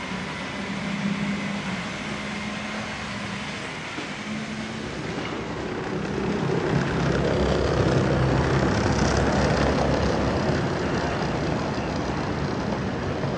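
N-scale model trains running on the layout: a low hum comes and goes at first, then from about six seconds in the running noise of a model train on the track grows louder as it passes close by.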